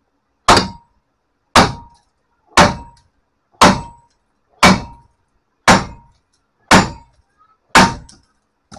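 Heavy sledgehammer striking a brake rotor seized to the hub: eight blows about one a second, each with a short metallic ring. The rotor is stuck fast, which the mechanic puts down to the bad hub bearing having welded it on.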